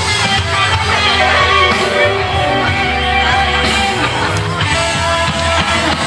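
Live rock band playing a classic rock and blues number, with electric guitar over a steady beat.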